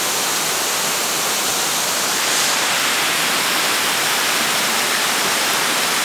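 A waterfall cascading down a stepped rock face: a steady, even rush of falling water, hissy rather than deep.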